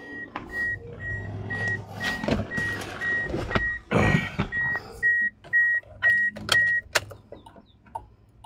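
A car's in-cabin warning chime beeping steadily about twice a second, with clicks and knocks of handling, until the beeping stops about seven seconds in.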